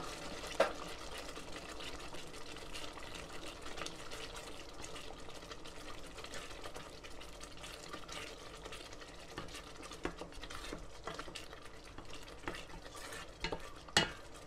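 Wooden spoon stirring tomato paste as it fries in a hot stainless steel pot: a steady soft sizzle under light scrapes and taps of the spoon on the pot, with a sharper knock about a second before the end.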